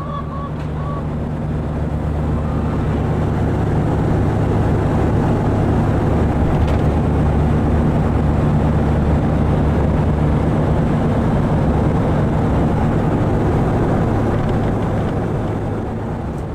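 A motor vehicle's engine running at a steady pitch, swelling over the first few seconds and fading away near the end.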